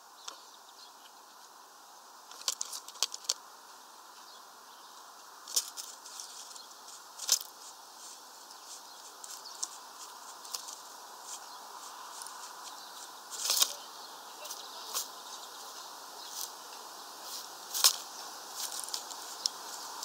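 Irregular sharp taps and small rattles as a great spotted woodpecker pecks and scrabbles at sunflower seeds on a window feeder's plastic seed tray, over a steady faint hiss.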